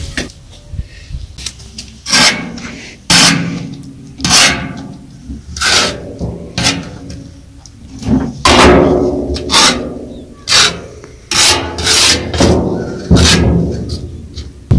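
Metal ladle scraping along the inside of a large metal cooking pot as cooked rice is scooped out. About a dozen scrapes come roughly a second apart.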